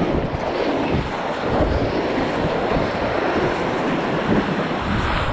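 Steady rush of water splashing along a stand-up paddleboard's nose and rails as it rides a wave, mixed with wind buffeting the microphone.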